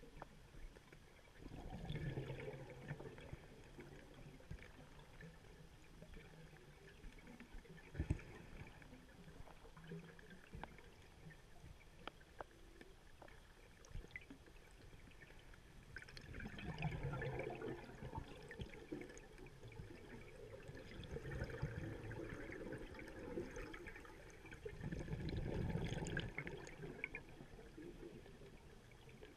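Scuba diver's exhaled breath bubbling out of the regulator underwater, in several bouts of a second or two each: one near the start and three more in the second half. A few faint clicks come in between.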